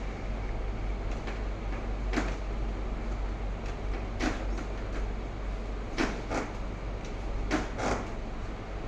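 Several short knocks and creaks over a steady background hum, made while a patient is handled and adjusted on a chiropractic treatment table. They come singly at first, then in quick pairs near the end.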